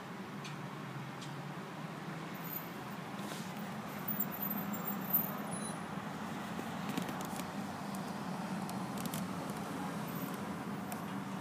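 Car engine running, heard from inside the cabin as a steady low hum, with a few faint clicks.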